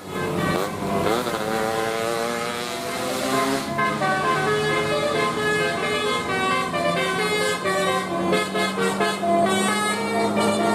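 Telolet bus horn: a multi-tone air horn on a bus playing a melody of quick stepped notes, with gliding pitches in the first couple of seconds and a new run of notes starting about four seconds in.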